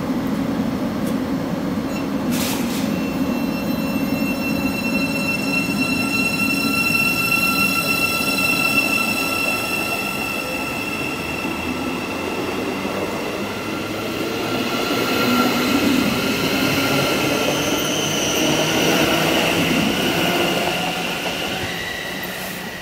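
Thameslink Class 700 electric multiple unit pulling out along the platform, a steady electric drive whine over wheel and rail rumble, fading near the end.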